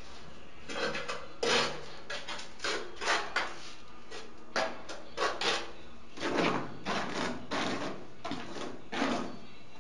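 Trowel scraping tile mortar out of a bucket and spreading it over the back of a ceramic tile, in a run of short, irregular scraping strokes.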